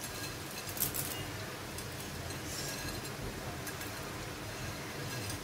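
Crisp deep-fried hakka noodles crackling in a few quick clicks as fingers press them on the plate, about a second in, with a brief rustle of the noodles near the middle, over a low steady hum.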